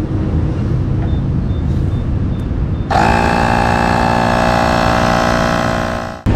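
Portable electric tyre inflator switched on about halfway through: a loud, steady motor-and-compressor buzz that rises slightly in pitch as it starts, runs for about three seconds, then cuts off. Before it there is a low rumble with a few faint beeps.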